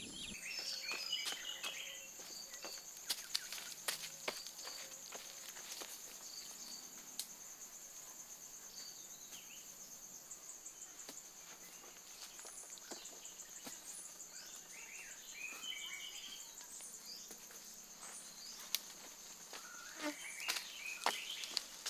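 Steady high-pitched insect drone, with scattered bird chirps and a few light taps.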